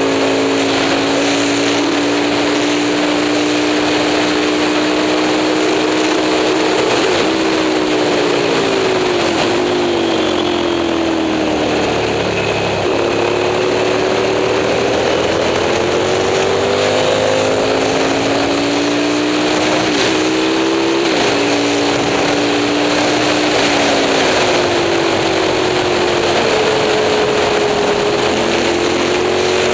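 Moto Morini 350 V-twin four-stroke engine running hard at racing revs. Its pitch rises and falls through gear changes and corners, with brief dips at the shifts several times.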